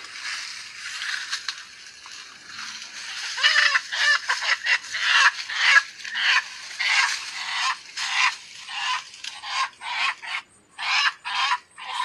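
Leaves and branches rustling, then from about three seconds in a chicken held in the hands squawking over and over, about two loud calls a second.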